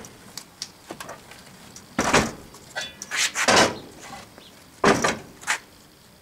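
Metal sand-casting flask and wooden molding board being handled and set down on the molding bench: a series of knocks and scrapes, the loudest about two, three and a half and five seconds in.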